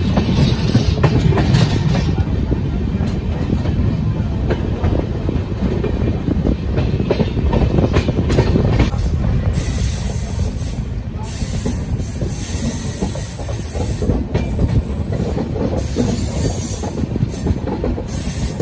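Passenger train running on the rails with a steady low rumble and wheels clacking over rail joints. From about halfway, a high wheel squeal comes and goes.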